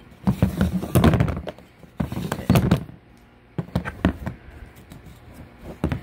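Metal ratchet strap being handled: irregular clicks, knocks and rattles of the steel ratchet frame and spool, with the scrape of the nylon webbing sliding out of the freed spool.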